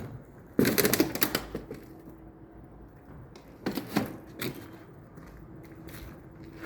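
Rapid sharp clicking and clattering of small hard objects in three bursts: a long one about half a second in, another around four seconds in, and a short one near six seconds. A faint steady hum sits underneath.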